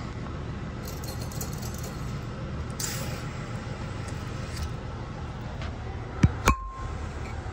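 Two sharp knocks on the porcelain toilet tank near the end, the second louder with a brief ringing clink, over a steady low rumble.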